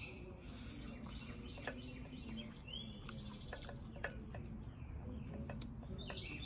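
Birds chirping outdoors over a steady low background rumble, with a couple of sharp clicks of a metal fork against a ceramic bowl, one about a second and a half in and one about four seconds in.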